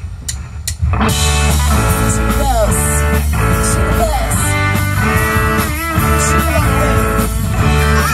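A few sharp clicks, then about a second in a live rock band starts playing loud: electric guitars, bass guitar and drum kit together through the stage amplifiers.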